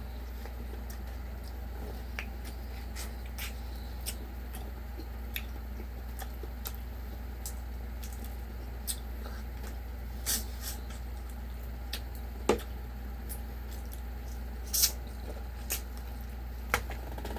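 Eating noises: irregular wet clicks and smacks of chewing and lips, a few of them sharper, over a steady low hum.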